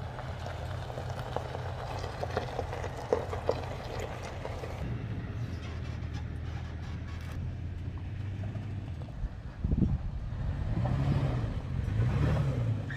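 Toyota off-road trucks' engines running low and steady as they crawl along a rocky dirt trail, with light crunching from the tyres on the stones. Near the end it gets louder and the engine note rises and falls twice.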